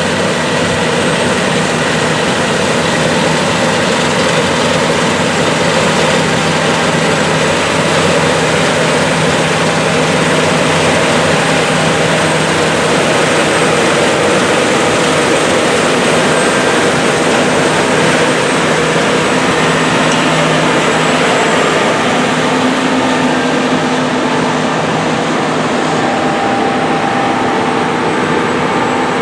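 John Deere S790 combine harvester running steadily while harvesting wheat, a loud, even engine-and-machinery noise with a few held tones.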